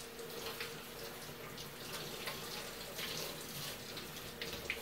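Cold water running from a kitchen faucet over squirrel carcasses being rinsed by hand in a stainless steel sink, a steady faint stream with small splashes.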